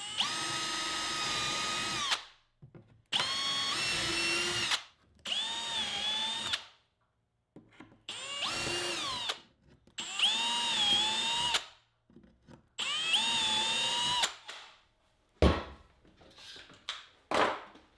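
Cordless drill boring 1/4-inch shelf-pin holes through a shelf-pin drilling jig into the plywood cabinet side: six separate runs of about a second and a half each, the motor's whine dipping briefly in pitch during several of them. A few sharp knocks follow near the end.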